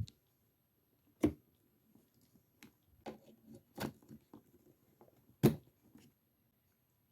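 Clicks and knocks of hard objects being handled, irregularly spaced. The two loudest come about a second in and about five and a half seconds in, with a cluster of lighter clicks between them.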